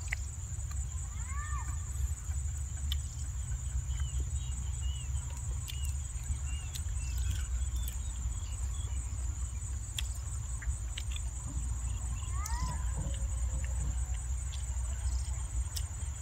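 Wind rumbling on the microphone under a steady, high-pitched drone of insects, with a few short bird chirps and the small clicks and smacks of someone eating boiled chicken with his hands.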